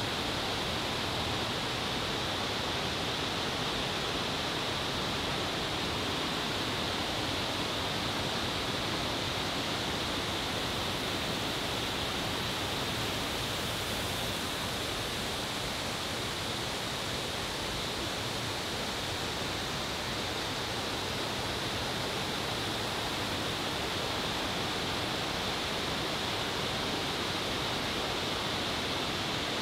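Steady, unbroken rush of water from a Japanese garden waterfall.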